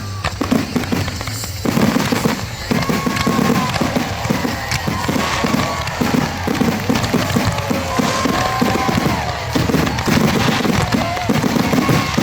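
Fireworks finale barrage: shell bursts booming in quick succession, growing dense about two seconds in, with whistling tones that rise and fall over the booms.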